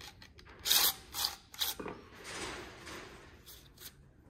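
Red plastic recoil starter from a Honda lawn mower being handled, its rope pulley turned by hand while the new pull cord is fitted. There are a few sharp plastic clicks and rattles in the first two seconds, then softer rubbing as the cord moves.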